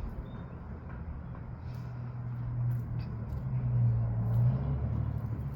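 A motor vehicle's low engine hum swelling and then easing off, as of a car going by.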